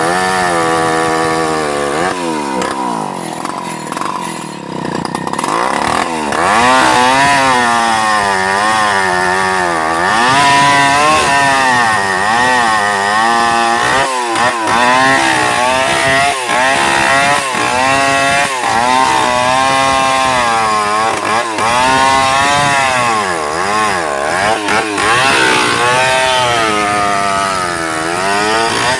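Stihl 070 single-cylinder two-stroke chainsaw at full throttle, ripping lengthwise through a large sengon log. Its engine pitch keeps wavering up and down as the chain loads in the cut, and it sags lower for a few seconds near the start before picking up again.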